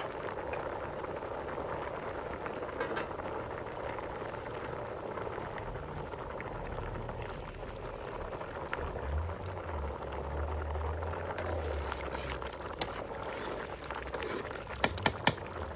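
A pot of liquid at a steady rolling boil, bubbling evenly, with three sharp clicks near the end.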